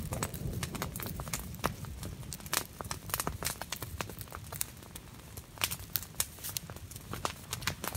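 Small fir twig tips being snapped off by hand: a quick, irregular run of crisp snaps with rustling of the needles.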